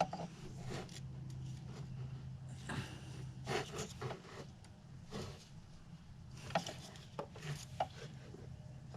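Hand work on the engine: scattered rubbing, scraping and light knocks of a new thermostat and its rubber seal being pressed and worked into the thermostat housing, over a steady low hum.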